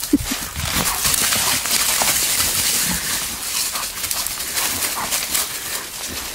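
Dry leaf litter and brush rustling and crunching as a dog and wild boars run through woodland, with quick scattered footfalls. It opens with the last of a rapid run of short animal calls.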